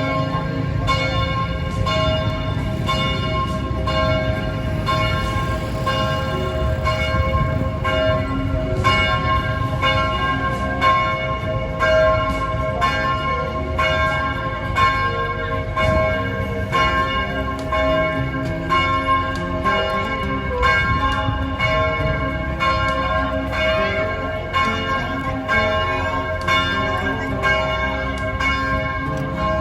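Church bells ringing, struck repeatedly about once a second, each strike's tone ringing on into the next. A steady low rumble runs underneath.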